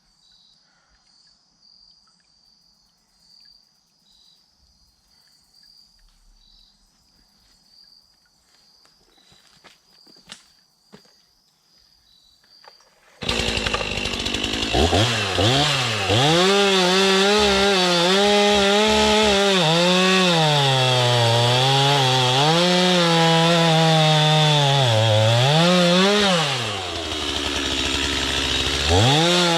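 Insects chirping steadily, then about halfway through a chainsaw comes in loud and revs up and down repeatedly as it cuts, easing off briefly near the end before revving again.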